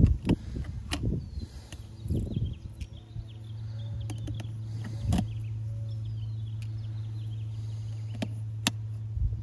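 Clicks and taps of a small screwdriver and tools on an iPhone XR during logic board removal, bunched in the first couple of seconds with a few scattered later. Underneath is a steady low hum and faint bird chirps.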